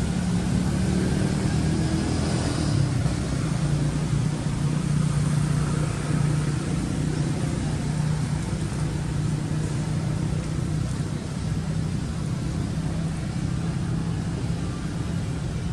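A steady low motor drone over an even hiss.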